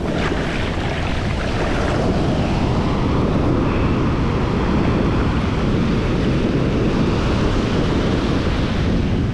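Shallow surf washing in and fizzing over wet sand close by, with wind rumbling on the microphone.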